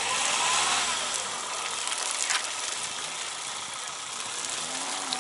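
Dacia Duster SUV's engine running as it crawls through deep mud ruts, its hum rising and falling with the throttle under a steady hiss.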